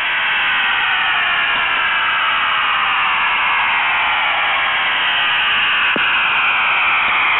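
Shortwave radio in upper-sideband mode on 4310 kHz giving out the steady hissing rush of the 'Goose', a Russian over-the-horizon radar signal, with faint tones gliding slowly through the noise.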